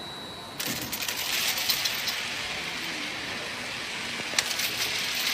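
A steady hum with a thin high tone, cut off abruptly about half a second in by a dense hissing rattle of many small hard objects tumbling and clicking. One sharp click comes near the end.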